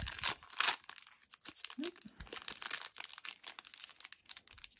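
Crinkly foil-lined candy wrapper of a chocolate-covered marshmallow bear being torn and pulled open by hand: dense crackling and tearing, busiest in the first second, then sparser crinkles.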